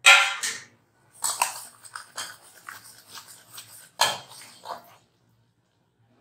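Steel ladle stirring and scraping through bubbling jaggery syrup in a steel pan, with irregular scrapes and clinks of metal on metal. The loudest is a sharp clatter right at the start, with another strong clink about four seconds in.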